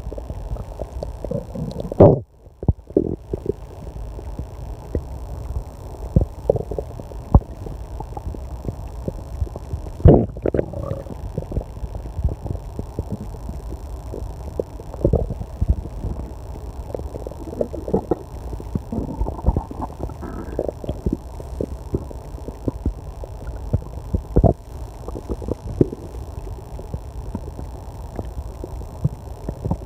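A person's stomach growling and gurgling loudly, in irregular rumbles and short pops that go on without a break. The two loudest surges come about two and ten seconds in.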